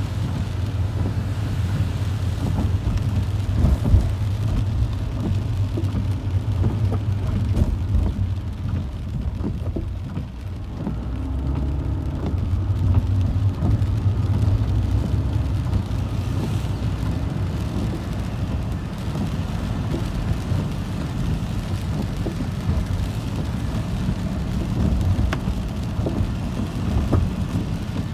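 Inside a car driving on wet streets: a steady low rumble of the car and its tyres on the wet road, with the hiss of rain and spray on the car. The rumble eases briefly about ten seconds in.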